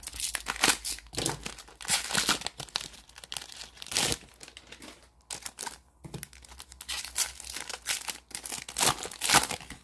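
Plastic wrapper of a 2021 Panini Mosaic football card pack being crinkled and torn open by hand. It makes a run of irregular crackles and rips, with several louder tears along the way.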